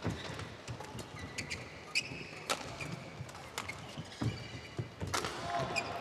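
Badminton rally: sharp pops of rackets striking the shuttlecock, about one a second, with short high squeaks of court shoes on the court mat.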